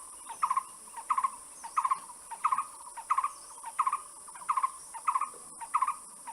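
A bird calling over and over, a short clipped call about one and a half times a second, over a steady high-pitched insect hiss.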